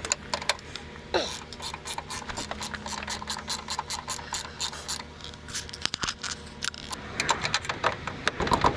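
Hand ratchet wrench clicking in quick runs, a few to several clicks a second, for most of the stretch over a steady low hum.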